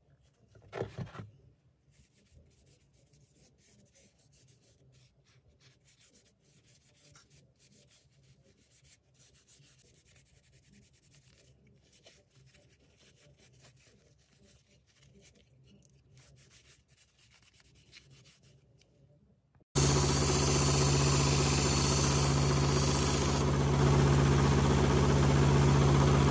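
Faint rubbing of a cloth working finish into a wooden knife handle, with a brief bump about a second in. About twenty seconds in, a belt sander starts abruptly and runs steadily with a strong, constant low hum, much louder than the rubbing.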